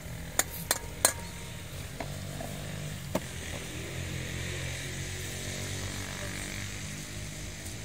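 Hot oil sizzling steadily in a large aluminium pot of frying kofta, over a steady low hum. A few sharp metal clinks come in the first second, with one more about three seconds in.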